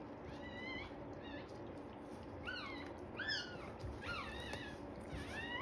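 Newborn poodle puppy crying: about half a dozen short, high, meow-like squeals, each rising then falling in pitch.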